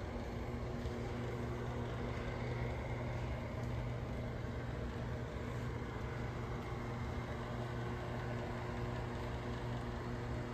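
Steady low mechanical hum of a running household appliance, with an even background hiss and no change in pitch or level.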